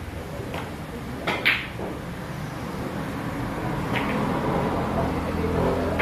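Pool shot: the cue tip hits the cue ball and the cue ball clacks sharply into the object ball about a second and a half in, with a fainter ball knock about four seconds in. A steady low hum runs underneath.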